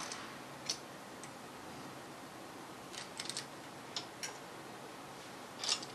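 Scattered small metallic clicks and taps as carburetor mounting bolts are handled and started by hand: a single click under a second in, a quick cluster about three seconds in, a couple more around four seconds, and a louder click near the end.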